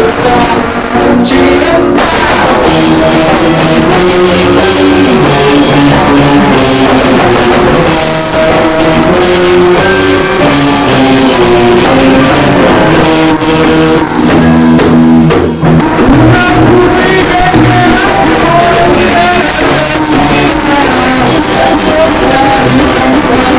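A rock band playing at rehearsal: drum kit and guitar with a singing voice, loud and continuous.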